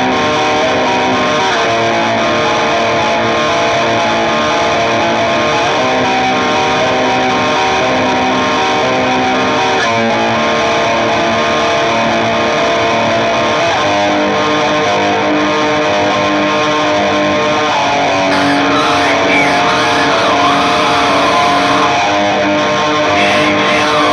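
Music on distorted electric guitar: sustained chords that change every couple of seconds, with a wavering higher melody line coming in about three-quarters of the way through.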